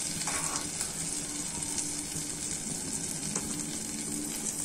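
Melted butter sizzling steadily in a stainless-steel pan with cumin seeds just added, a steady hiss with an occasional faint tick; the cumin has not yet begun to crackle.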